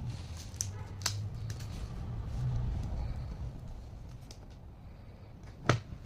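Scattered sharp clicks and taps of parts and tools being handled during laptop disassembly, over a low steady rumble; the loudest click comes near the end.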